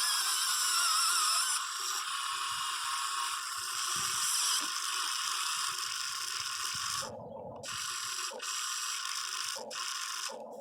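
Huina 580 RC excavator's small electric motors and plastic-and-metal gearboxes whining as the machine works, its pitch wavering. After about seven seconds it turns stop-start, in short bursts with brief pauses.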